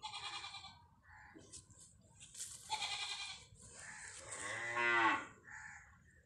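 A young calf bleating: shorter, higher calls early on, then the loudest call, a long wavering bleat, about four to five seconds in.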